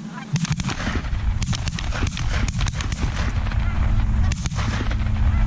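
Irregular knocks and clicks over a steady low rumble, with a few faint Canada goose honks, one at the start and one near the end.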